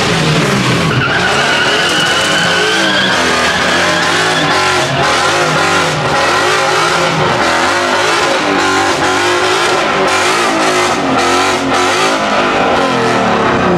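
Ford Mustang doing a burnout: the engine is held at high revs that rise and fall again and again, while the spinning rear tyres squeal steadily.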